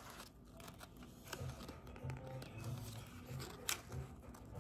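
Pages of a paperback book being turned and handled: soft paper rustles and light clicks, one sharper near the end, over faint background music.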